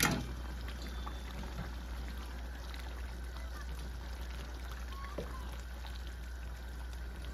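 Saucy pork and liver stew simmering in a wok while a wooden spatula stirs it, a steady wet bubbling with a few faint ticks. A sharp clink right at the start, over a constant low hum.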